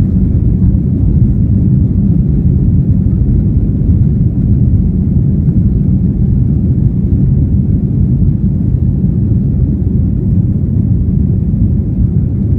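Steady low rumble of cabin noise inside an Airbus A320neo rolling on the ground, the engines running and the airframe moving along the pavement.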